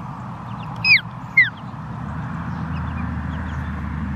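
A group of young chicks peeping continuously with short falling chirps, with two much louder falling peeps about a second in, half a second apart. A steady low hum runs underneath.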